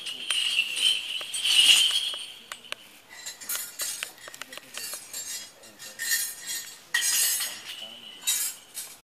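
Small metal bells jingling and clinking in irregular bursts during a Kerala temple ritual, with a steady high ringing in the first two seconds.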